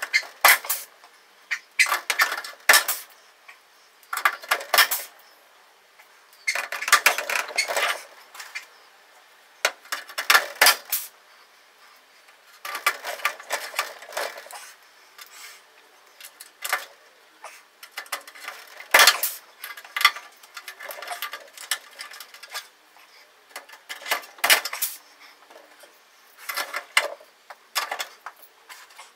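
Pneumatic blind-rivet puller setting rivets in an aluminium airframe: short bursts of sharp metallic clicks and clatter every few seconds, with quiet gaps between.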